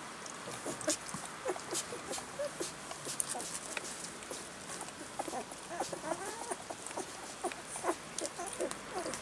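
Newborn rough collie puppies, two weeks old, squeaking and whining with many short, high squeaks that come more often in the second half, mixed with small clicks.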